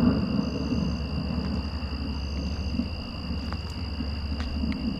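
Thunder sound effect played through a guitar amp, rumbling and dying away in the first second. Crickets then trill steadily, with a low background hum underneath.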